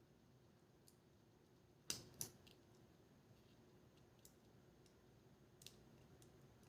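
Two sharp little clicks close together about two seconds in, then a few faint ticks. These are small plastic parts of a GoPro Hero 5 Black being handled as its ribbon cable connectors are pressed into place on the motherboard.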